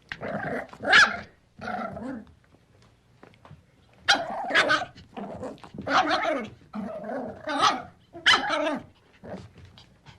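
Puppy barking and yapping in a string of about seven short, pitched calls with gaps between them, some sliding in pitch.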